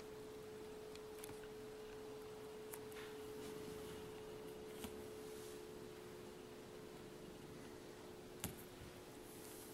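Faint steady hum on one tone, with a few soft clicks, the sharpest about eight and a half seconds in.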